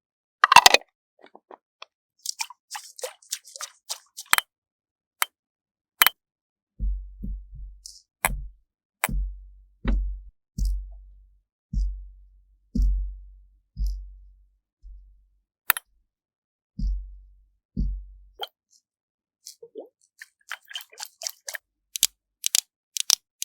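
ASMR sound effects: a few sharp clicks and taps, then about a dozen soft, deep thuds roughly one a second, then a patter of small quick clicks near the end.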